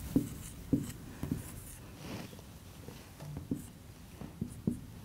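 Marker pen writing on a whiteboard: irregular short taps and squeaks as figures are written, with no steady rhythm.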